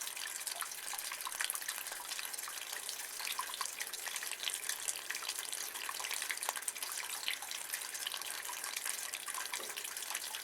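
Rainwater running and dripping in a rain gutter: a steady trickling hiss with many small drips and splashes.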